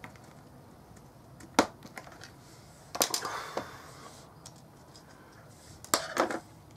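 Sharp clicks and snaps of small plastic model-kit parts being cut free from the sprue with a hobby knife and handled on a cutting mat: one about one and a half seconds in, a short cluster at about three seconds, and another cluster near the end.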